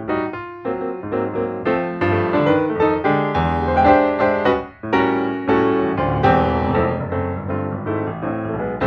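Background music: piano playing a run of quickly struck notes.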